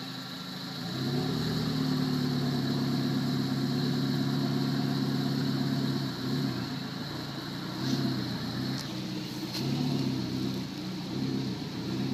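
Off-road 4x4's engine revving: it rises about a second in and holds at raised revs for about five seconds, then is revved up and let down several times.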